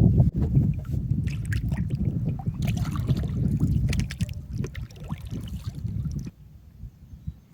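Kayak on the water: paddle splashing and dripping, with scattered knocks and clatter against the hull over a low rumble. The sound drops away abruptly about six seconds in.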